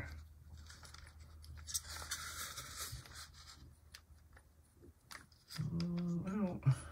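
Fingers handling an HO-scale model locomotive's plastic chassis and turning its wheels and trucks by hand: faint scratching and small clicks of plastic and gears. Near the end there is a short hummed vocal sound.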